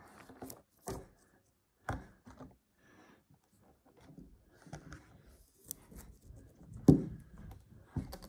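Fidget toys being handled and set down on a wooden table: a few scattered light knocks with soft rubbing between, the sharpest knock near the end.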